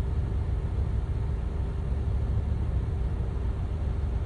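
Steady low rumble of a car engine and road noise, with a faint steady hum over it.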